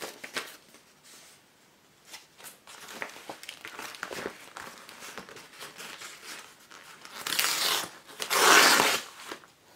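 Packaging being opened by hand: rustling and crinkling with scattered small clicks, then two loud tearing rips about seven and eight seconds in.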